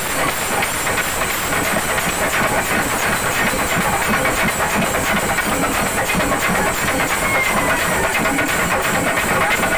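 A large ensemble of Kerala chenda drums beaten with sticks, many strokes merging into a loud, dense, continuous drumming.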